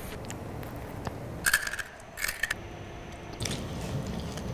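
A metal spoon scraping and clinking against a bowl, with two sharp ringing clinks about halfway through.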